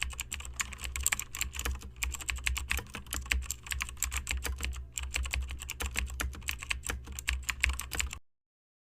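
Rapid, irregular clicking and crackling over a steady low hum, cutting off suddenly near the end.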